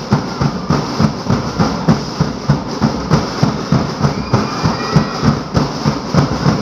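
Drums beating a fast, steady rhythm of low thumps, about three strikes a second, to accompany a street dance.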